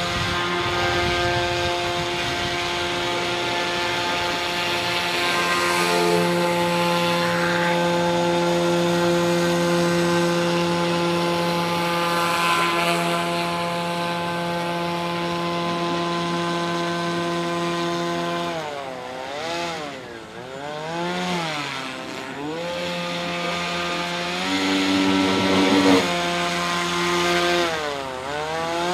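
RC airboat's electric propeller drive, an NTM PropDrive 50-60 brushless motor turning an APC 7x8 propeller, running as a loud, steady buzzing drone. About two-thirds of the way in, its pitch falls and rises several times, holds steady briefly, then wavers again near the end.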